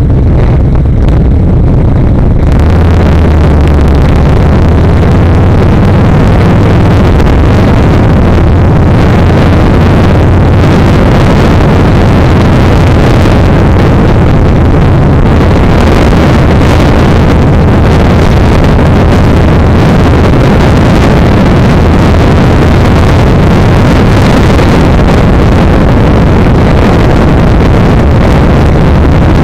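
Yamaha XVS1300's V-twin engine running on the move, under heavy wind rush on the microphone that grows much louder about two seconds in.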